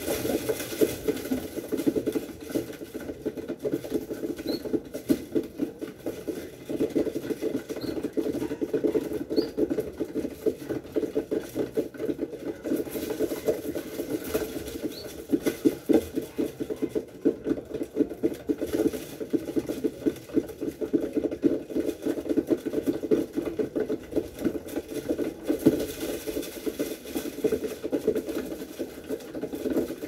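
Birds pecking seed in a cardboard box feeder: a dense, continuous run of rapid small taps on cardboard, with a few short high peeps now and then.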